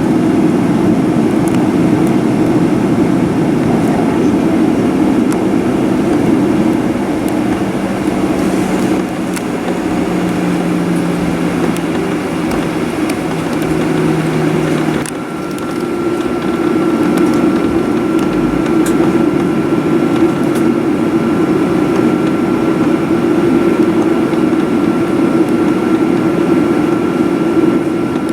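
Boeing 737-900ER's CFM56-7B engines and airflow heard from inside the cabin as a steady rumble. About halfway through the sound changes abruptly and a steady high whine sets in.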